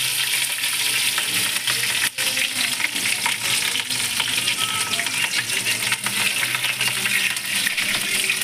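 Cumin and green chillies frying in hot oil in a steel kadhai: a steady sizzle with many fine crackles.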